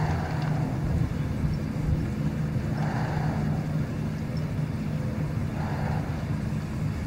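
A motor runs steadily with a low hum. Soft hissing swells rise and fade about every three seconds over it.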